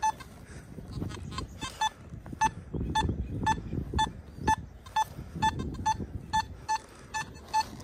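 Metal detector beeping: short beeps, all at the same mid pitch, repeating irregularly two to four times a second from about a second in. A low rustling scrape runs underneath.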